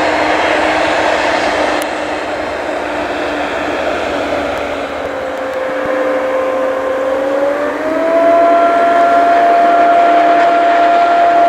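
Claas Jaguar 980 forage harvester chopping maize, with a tractor alongside: a steady, loud machine drone with a high whine that rises in pitch about three quarters of the way through and then holds.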